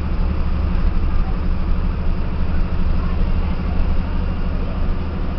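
Volkswagen 17-210 EOD bus's diesel engine running steadily as the bus drives along, heard from inside the cabin near the driver: a constant low drone with road noise.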